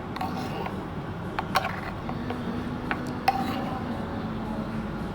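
Metal spoon clinking against a cup as milk foam is spooned onto the coffee: several sharp clinks with a short ring, the loudest about a second and a half in and just over three seconds in, over a steady low hum.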